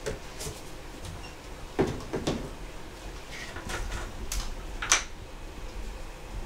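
Kitchen cupboard and jars being handled: a few separate knocks and clinks, the loudest about two seconds in and a sharp click about five seconds in, over a faint low hum.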